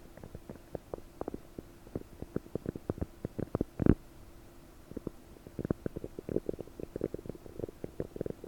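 Bloated stomach and intestines gurgling with a rapid run of small bubbling pops, the loudest just before four seconds in, then a brief lull and more gurgles. The bowel is bubbly and bloated from gas after eating a large helping of prunes.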